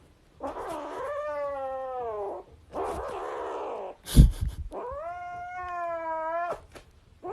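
Domestic cat yowling in three drawn-out calls. The first starts harsh and slides down in pitch, and the last is long and held. A loud thump comes a little over four seconds in.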